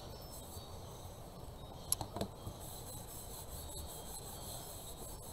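Faint rubbing of a paper towel wiping down the edges of freshly glued paper, with a few light taps and clicks.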